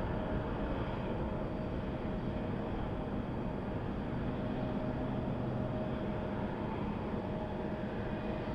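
Steady, even rumble of jet airliners' engines on the airfield, with a faint steady whine held throughout.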